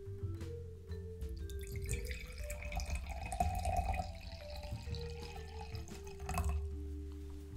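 Water poured from a glass carafe into a drinking glass: a trickling splash from about two seconds in, ending with a short knock near the end.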